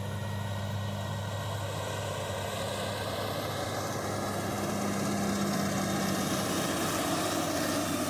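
Heavy earthmoving machine's engine running steadily under work, with a constant low hum that grows a little louder about halfway through.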